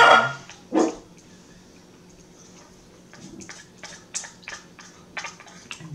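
Close-up mouth sounds of eating: an uneven string of short wet clicks and lip smacks over a couple of seconds.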